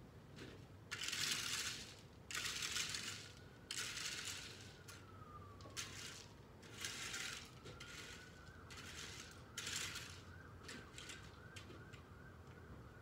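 A rake scraping and dragging through loose gravel in about five separate strokes, each half a second to a second long.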